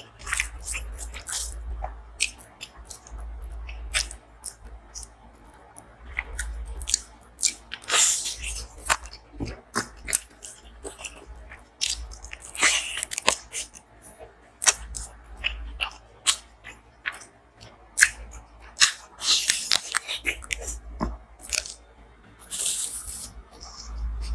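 Close-miked eating: a person chewing with many sharp wet mouth clicks, broken by several louder crunching bites.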